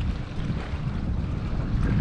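Wind buffeting the camera's microphone: a steady low rumble.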